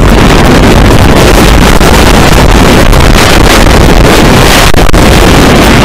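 Arrow steel looping roller coaster train running along its track at speed, heard through loud, steady wind rushing over a front-seat rider's microphone.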